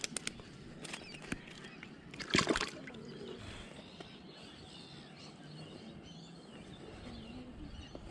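Close handling noise from fishing gear: a few sharp clicks, then a short louder scraping rustle about two and a half seconds in, over a faint steady outdoor background.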